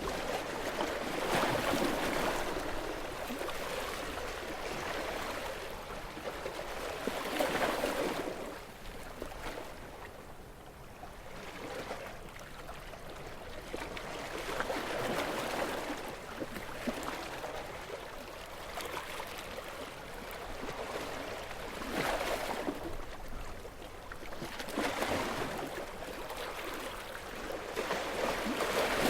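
Gentle sea waves on a calm sea, washing in and drawing back in slow swells every few seconds, each a rush of water that rises and fades.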